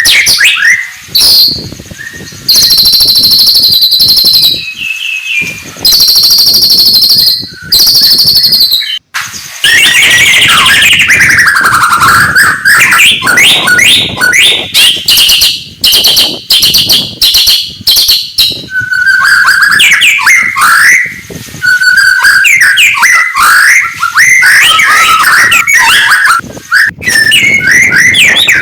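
White-rumped shama (murai batu) singing loudly and without letup: clear whistled notes held steady, long sliding phrases and quick runs of chattering notes, broken by short pauses between phrases.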